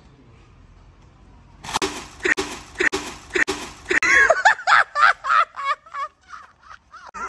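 A person laughing. It starts as breathy bursts about twice a second, then from about four seconds in turns into a louder, quick giggle whose pitch bends up and down.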